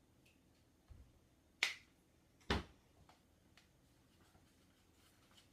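Homemade glitter-glue slime being pressed and pulled between the fingers, giving two sharp pops under a second apart and a few fainter clicks.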